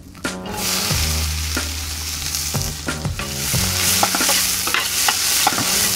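Chopped onions sizzling in hot lard in a large stainless steel pot. The sizzle starts suddenly a moment in, as the onions hit the fat, and is steady and loud, with the spoon knocking and scraping against the pot as they are stirred.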